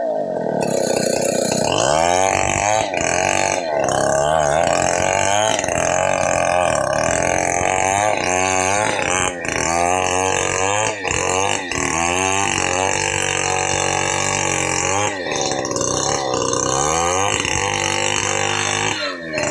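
Chainsaw engine running loudly, its pitch rising and falling over and over as it is throttled up and loaded in cutting wood, with a few brief breaks.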